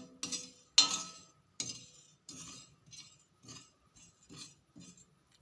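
A metal utensil scraping and clinking on an iron tawa in short strokes, about two a second, the first stroke the loudest. This is the sound of stirring ajwain and cumin seeds as they dry-roast.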